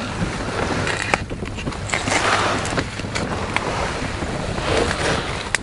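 Rustling handling noise and wind on the microphone, with a few light clicks, while a small perch is unhooked by hand.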